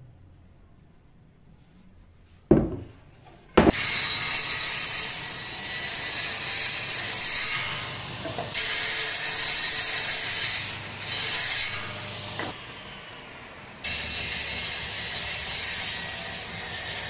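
Table saw running and cutting through wood boards on a crosscut sled, a steady noisy cut with a high whine that shifts abruptly a few times. It begins after two sharp knocks about three seconds in.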